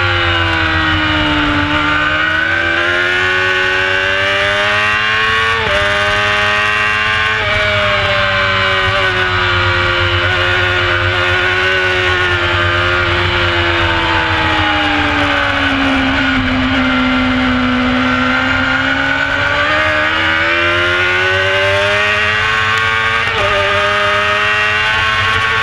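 Onboard sound of a carburetted Honda CBR600 F4's inline-four engine being ridden hard on track. Its pitch falls as the bike slows for a corner and climbs again as it accelerates, twice, with brief breaks in the note about six seconds in and near the end, over steady wind rush on the microphone.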